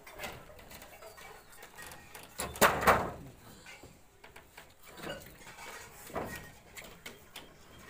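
Wooden formwork planks scraping and knocking as they are shifted into place by hand. The loudest scrape comes about two and a half seconds in, with fainter ones near the end.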